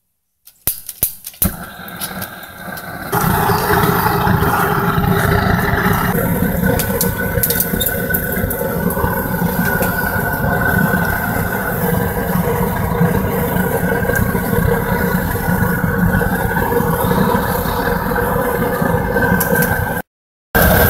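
Gas burner of a small metal-melting furnace being lit: a few sharp pops and sputters, then about three seconds in it catches and burns with a steady loud rushing noise. The sound cuts out briefly near the end.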